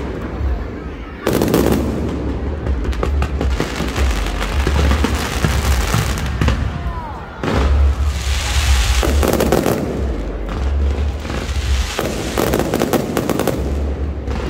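Aerial fireworks display: a rapid barrage of shell bursts and pops, with heavy booms about a second in and again about halfway through.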